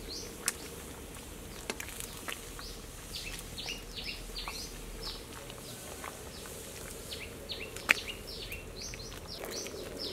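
Small birds chirping: many short, quick chirps that fall in pitch, over a faint steady background hum. A few sharp clicks cut through, the loudest about eight seconds in.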